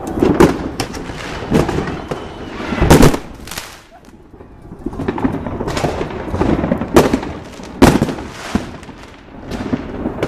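Loud, sharp bangs going off at uneven intervals, each trailing off briefly, with a lull about four seconds in.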